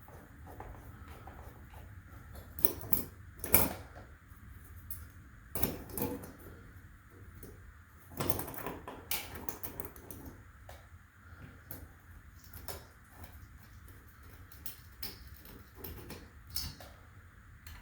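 Irregular clicks, knocks and scrapes of hands and tools taking apart an old hardwired smoke alarm's mounting and wiring, the loudest knock about three and a half seconds in.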